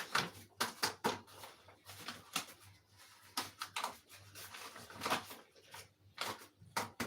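Spoon knocking and scraping against a mixing bowl in irregular quick clicks as flour, sugar and yeast are stirred together.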